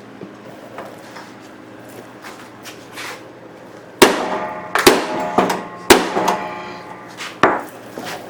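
Sledgehammer striking the steel crankshaft of a Honda mower, four hard blows about a second apart beginning about halfway through, each leaving a metallic ring. This is hammering the bent shaft straight.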